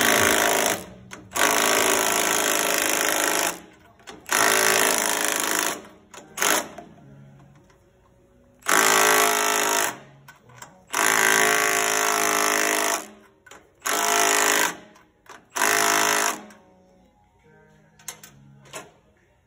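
Cordless impact wrench hammering down the clamp bolts on a diesel particulate filter, run in about eight short bursts of one to two seconds with pauses between, the last near the end.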